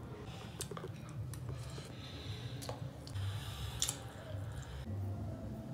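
Faint clicks and rustles of someone eating rice with a metal fork, a few sharp clicks spread through, over a low steady hum.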